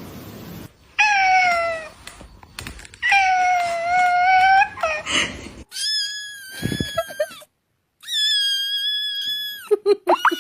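Cats meowing: four long, drawn-out meows, the first two lower and falling in pitch, the last two much higher and held at a steady pitch, then a few short cries near the end.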